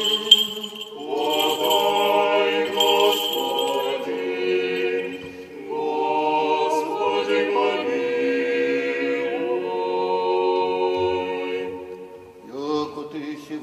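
Orthodox church choir singing panikhida chant a cappella, in several slow phrases of long held chords with short pauses between them.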